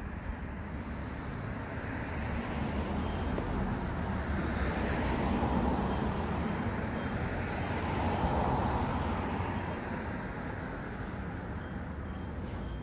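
Street traffic: cars passing on the road, the rushing swelling twice, about halfway through and again a few seconds later, over a steady low rumble.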